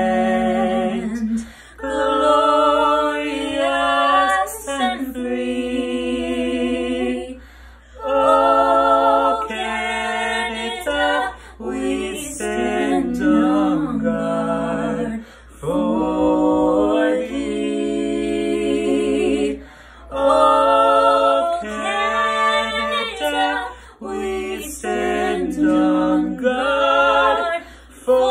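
A small group of young voices, female and male, singing a cappella in harmony, in sustained phrases with short breaks between them.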